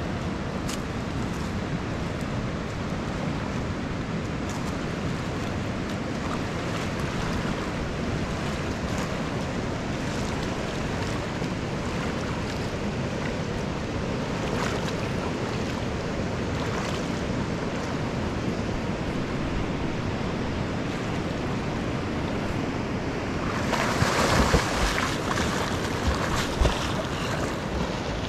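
A steady rushing noise that grows louder and rougher about three-quarters of the way through, with a few low thumps near the end.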